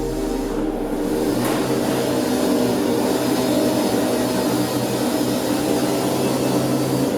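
Steady machine drone with a rushing noise, holding an even pitch throughout.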